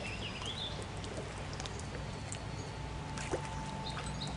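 Light water sounds as a hand reaches into a river, over a steady low hum, with a few faint chirps near the start.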